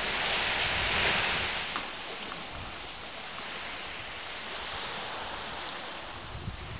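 Ocean surf on the shore: a wave breaks with a swelling rush about a second in, then the water washes on as a steadier, softer hiss.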